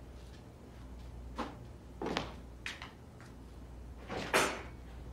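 Clothes and hangers being handled in a wardrobe: a few short knocks and rustles, the loudest and longest a little over four seconds in, over a faint low hum.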